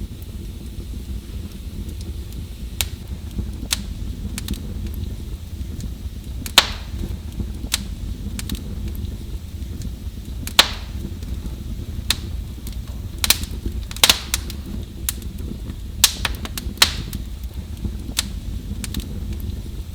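Wood fire crackling, with a steady low rumble of the flames under irregular sharp pops and snaps, a few of them louder.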